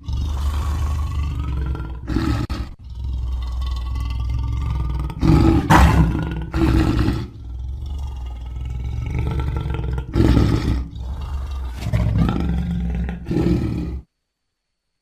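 Cartoon Wolf Shark creature sound effect: a long, low growling roar that swells into louder roars several times, then cuts off suddenly about a second before the end.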